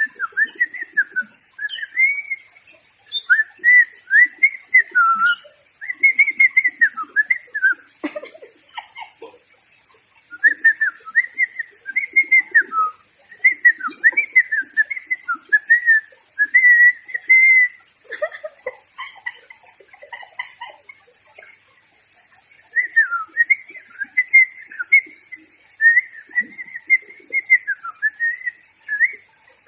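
Pet parrot whistling a warbling tune in repeated phrases of rising and falling notes, with short pauses between phrases.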